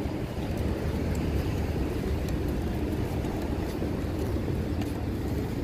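Steady low rumble of a city street: traffic noise with no distinct events.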